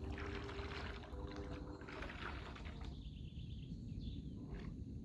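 Radio-controlled bait boat's electric propeller motors driving it away through the water: splashing water churn with a faint motor hum for about three seconds, then fading as the boat moves off, over a low steady rumble.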